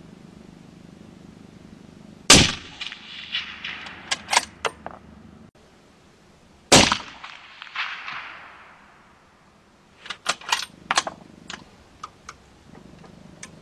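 Two shots from a suppressed .308 Marlin X7 bolt-action rifle, about four seconds apart. Each is a sharp crack; the first is followed by a run of smaller cracks and clicks, the second by a fading tail. A quick series of sharp clicks follows near the end.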